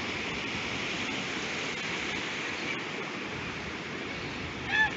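Steady wash of ocean surf on the beach. A short, high-pitched call rises and falls once near the end.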